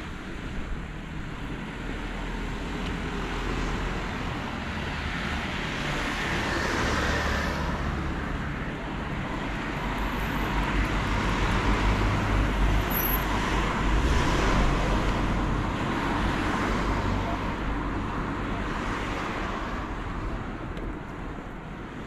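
Road traffic passing: a rushing noise of tyres and engines with a low rumble, swelling and fading and loudest a little past the middle.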